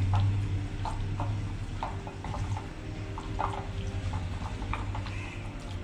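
Chicken pieces being stirred and mixed in a thick curd-and-ground-nut marinade, giving irregular soft wet clicks and smacks, over a steady low hum.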